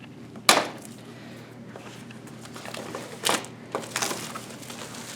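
Handling of a component's cardboard box and packaging: a sharp knock about half a second in, then a few smaller clicks and crinkles around three to four seconds in.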